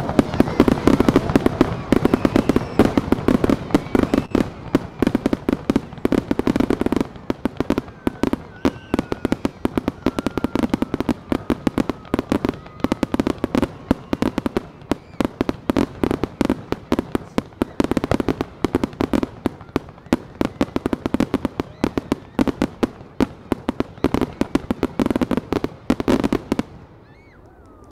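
Rapid-fire fireworks barrage: dense, overlapping launch thumps and shell bursts cracking many times a second, breaking off near the end.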